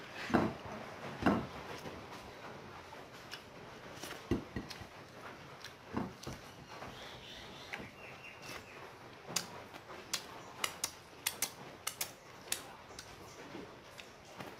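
Fingers scraping and wiping food off a ceramic plate, with a few soft thuds early on and then a quick run of sharp clicks and smacks in the second half.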